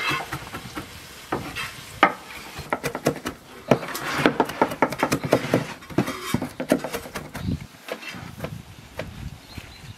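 A large kitchen knife chopping fresh dill on a wooden cutting board: sharp knocks of the blade on the wood. They come a few at a time at first, then in a quick run of several a second through the middle, and thin out near the end.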